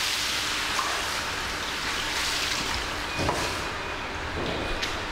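Water pouring and dripping out of a stainless steel basket of soaked sake rice as it is lifted from its soaking tub, marking the end of a timed limited-absorption soak. A couple of light knocks come in the second half as the basket is handled at the scale.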